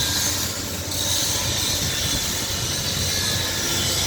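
Steady mechanical noise with a strong hiss and a low hum, its tone shifting slightly about a second in.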